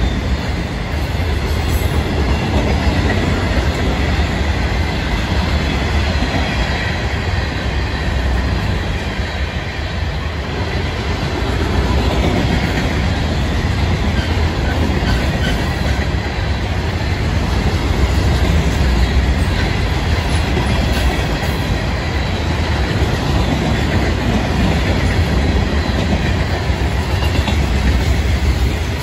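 Freight train's loaded rock hopper cars rolling past, steel wheels on the rails making a steady rumble with clickety-clack over the rail joints.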